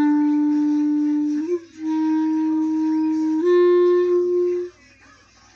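Clarinet played by a beginner: three long held notes, each a little higher than the one before, with a brief break and a blip of pitch between the first and second. The playing stops about a second before the end.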